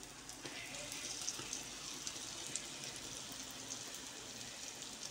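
Rounds of yeasted lokma dough frying in hot oil in a pan, a steady sizzle with fine crackling.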